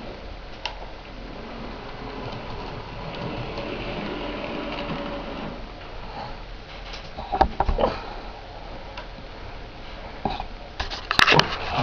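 Model train running on a layout with a steady whirring hum, with a few sharp clicks and knocks about two-thirds of the way in and again near the end.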